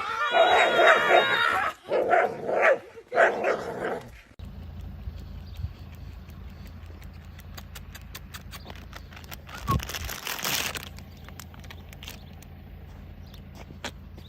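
A dog howling in three drawn-out, wavering calls over about four seconds. The sound then cuts to a quieter low steady hum with scattered clicks and a brief rush of noise about ten seconds in.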